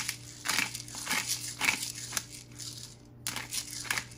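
Hand pepper grinder twisted over the pot, cracking peppercorns in short crunching strokes about two a second, with a brief pause about three seconds in.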